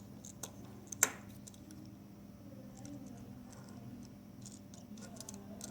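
Hands handling surprise-egg wrappers and small plastic toy pieces: scattered light clicks and crinkles, with one sharp click about a second in, over a faint steady hum.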